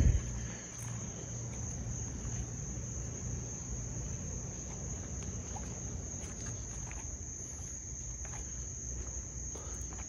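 Crickets chirping in a steady, high-pitched chorus over a low rumble. There is one sharp thump right at the start.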